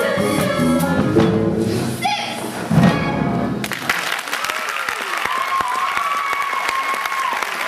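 A stage musical's closing number ends on a final chord that cuts off about three and a half seconds in; the audience then bursts into applause and cheering.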